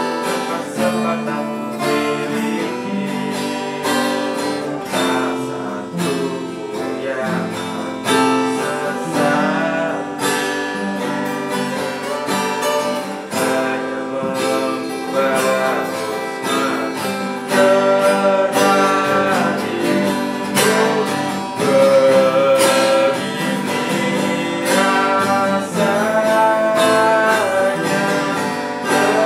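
Two acoustic guitars strummed and picked together, with a man singing a slow pop ballad over them.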